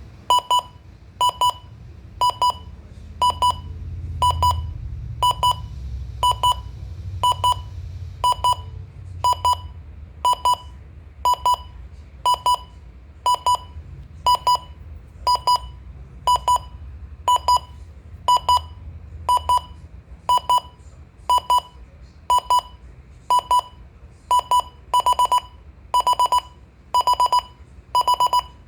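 Midland WR-120 weather radio's alarm-clock alarm beeping: short, high electronic beeps in quick pairs about once a second, the groups lengthening to three and four beeps near the end as the alarm escalates.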